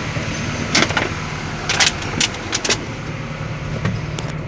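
Kobelco SK200-8 excavator's diesel engine idling steadily, with several sharp clicks and knocks between about one and three seconds in.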